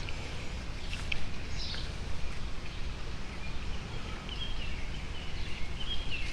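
Small birds chirping in short calls over a steady low background rumble, with a couple of light clicks about a second in.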